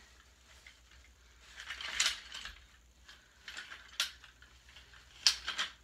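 Graco Pack 'n Play playard's top rails being pulled up and locked: three sharp clicks of the rail latches, about two seconds apart, over quieter rustling of the frame and fabric.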